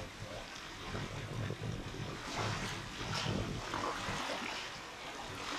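Wind buffeting an outdoor camcorder microphone, an uneven low rumble with a steady hiss and a few faint rustles.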